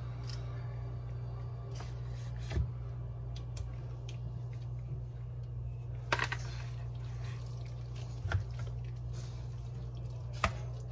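A plastic spoon pressing and stirring margarine into moist cornbread dressing in a foil pan: soft wet squishing and scraping, with four short clicks as the spoon knocks against the pan. A steady low hum runs underneath.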